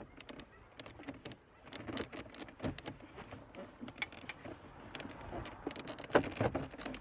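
Irregular small clicks and knocks of car door parts being handled, with a few louder knocks about six seconds in.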